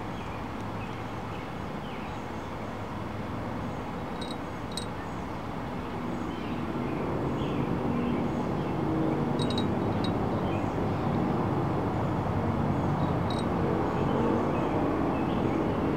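Steady outdoor background rumble, like distant road traffic, growing louder about six seconds in. A few faint, short, high chirps or ticks come and go on top of it.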